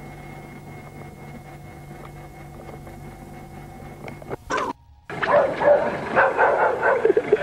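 A steady low hum for about four seconds, then, after a brief dropout, a dog barking rapidly and repeatedly.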